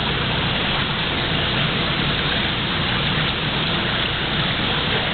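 Steady rushing noise of water running into or through a shallow tank.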